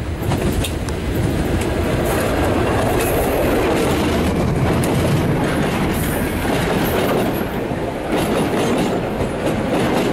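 South African Class 34 diesel-electric locomotive running past close by, followed by a freight train of open wagons rolling past. The train rumbles steadily and loudly, and the wheels clack over the rail joints.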